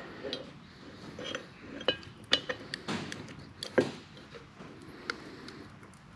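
Steel tailstock parts being fitted by hand into a cast-iron lathe tailstock casting, clinking and knocking against each other: a string of sharp metallic clicks, the loudest about two-thirds of the way through.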